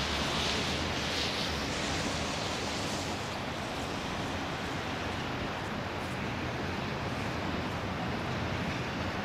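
Steady rushing noise of wind on the microphone, a low rumble with hiss over it, with no distinct sounds standing out.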